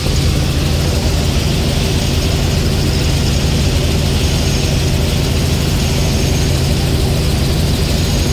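Helicopter engine and rotor noise heard from inside the cabin: a loud, steady drone with a strong low hum.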